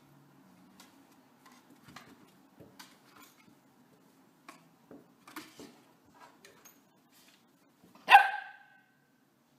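Corgi puppy's claws tapping on wooden stairs as it climbs, then a single loud bark about eight seconds in.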